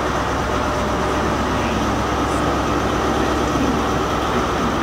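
Great Western Railway Castle-class HST, a short Intercity 125 set with Class 43 diesel power cars, departing the station, its diesel engines running steadily.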